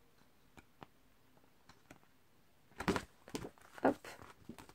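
Sheets of a scrapbooking paper pad being handled and turned: a few faint taps, then from about three seconds in a quick run of paper rustles and flaps.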